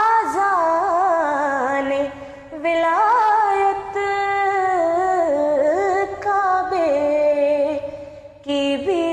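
A woman singing a devotional Urdu manqabat. She holds long notes with sliding, ornamented turns, in phrases broken by short pauses for breath.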